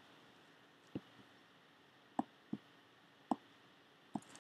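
Computer mouse clicking: six short clicks, irregularly spaced, two of them close together about halfway through.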